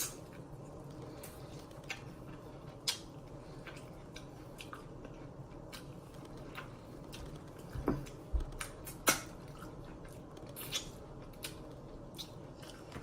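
Close-miked wet eating of a sauce-covered seafood boil: chewing and lip smacking with scattered sharp clicks and smacks, a few louder ones about two thirds of the way through.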